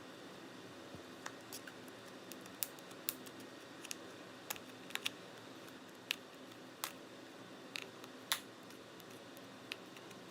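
Spudger prying at the seam between an iPod Classic's front and rear case to release the clips: irregular sharp clicks and ticks, a dozen or so, as the tool works at the case.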